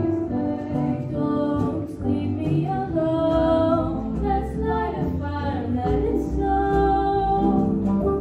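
Two female voices singing a duet into handheld microphones over instrumental accompaniment.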